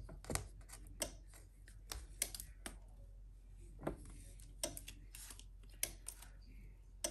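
Irregular light clicks, taps and rustles of paper and tape being handled on a work table.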